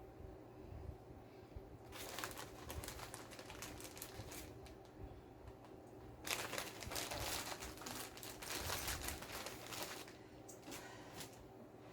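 Crinkling and rustling as food and packaging are handled, in two stretches: about two seconds in and again from about six to ten seconds, over a faint steady hum.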